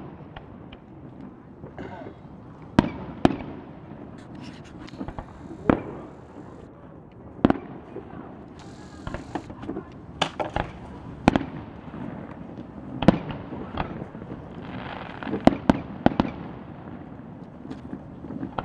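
Aerial fireworks shells bursting in a display: separate sharp bangs every second or two, several coming in quick pairs.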